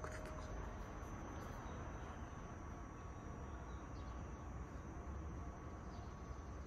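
Faint, steady outdoor background noise with a low rumble and a thin, steady high-pitched tone; no train is heard.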